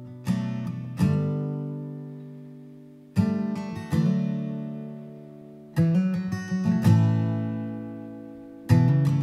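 Background music: slow chords strummed on an acoustic guitar, each left to ring and fade before the next strum.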